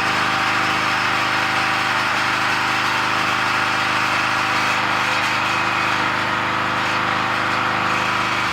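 Pressure washer's small gasoline engine running steadily at a constant speed after a repair.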